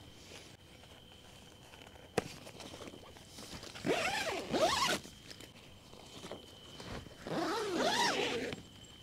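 A tent zipper pulled twice, each pull about a second long with a rising and falling rasp, after a single sharp click about two seconds in.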